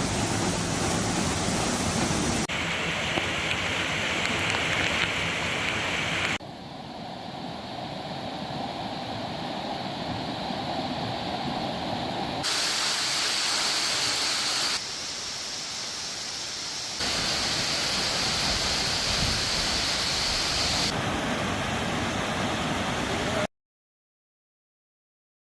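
Rushing water, like a waterfall or fast stream, as a steady loud rush that changes character abruptly several times between cut-together clips. It cuts to silence about two seconds before the end.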